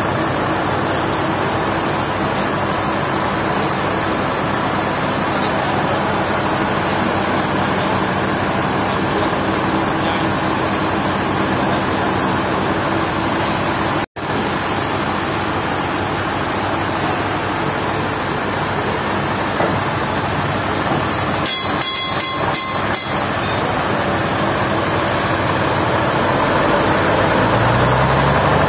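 Sawmill machinery running with a steady mechanical noise. The sound drops out for an instant about halfway, a cluster of rattling clicks comes later, and an engine note rises in pitch near the end.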